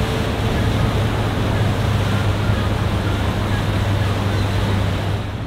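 Small motorboat running under way: its engine gives a steady low hum under the rush of water from the bow wake.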